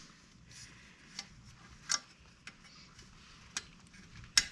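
A few separate sharp metallic clicks and taps as an exhaust spring is worked onto the hooks of a motorcycle exhaust joint by hand, the loudest near the end.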